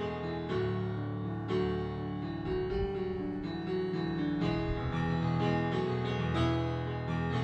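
Stage keyboard with a piano sound playing an instrumental passage of a rock song, a run of single notes over held chords, with no singing.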